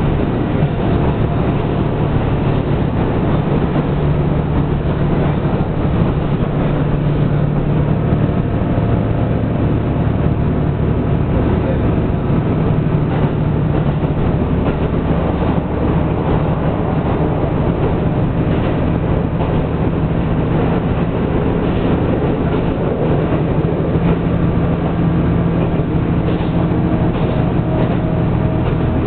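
Diesel railcar running steadily, heard from inside the car: a constant low engine drone over the running noise of wheels on the rails.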